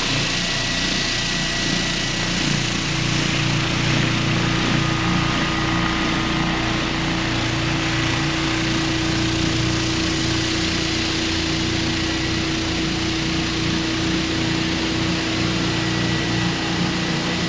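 Floor sander running steadily on a wood floor: a continuous even machine noise with a steady hum.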